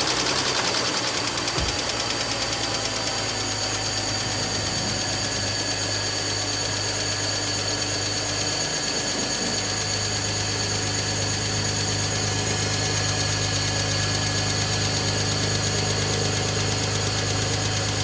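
BMW engine idling just after a start, with a fast rattle and ticking from the timing chain in the first few seconds before it settles into a steady idle: the sign of a failing timing chain tensioner, its spring worn out.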